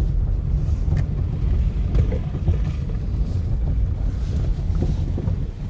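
A car driving, heard from inside the cabin: a steady low rumble, with wind buffeting the microphone.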